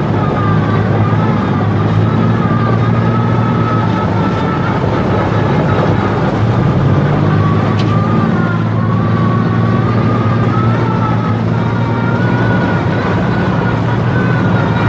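Tracked armoured mortar carrier (VCTM) driving, ridden on top: a steady, loud engine drone with the rumble of the running gear and a wavering high whine above it.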